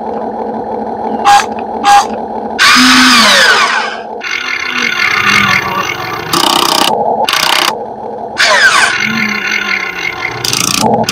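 Small electric motors of an RC model excavator whirring in repeated bursts over a steady whine. The longest burst, about three seconds in, falls in pitch as it runs down, and shorter bursts follow through the rest.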